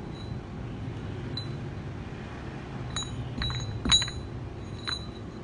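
Small cast iron weight plates clinking against each other as they hang and swing from a fishing line: four short metallic clinks with a brief ring in the second half, the third the loudest, over a steady low hum.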